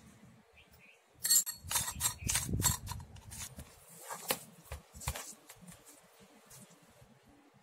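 Metal clicking and clinking as the perforated steel disc of an idiyappam press and a steel bowl are handled: a quick cluster of sharp clinks about a second in, lasting about two seconds, then a few fainter knocks.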